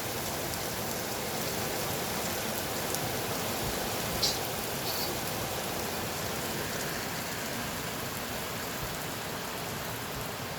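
Steady rain with big drops falling on hard surfaces, a constant even patter, with a couple of sharper single drop hits a little after the middle.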